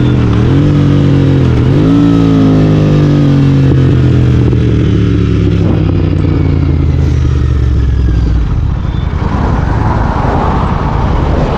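Royal Enfield Continental GT 650 parallel-twin running through a Red Rooster aftermarket exhaust, heard onboard while riding. Early on its pitch dips and climbs again twice with quick gear changes, then falls steadily as the bike rolls off. Near the end the engine note fades under a rushing noise.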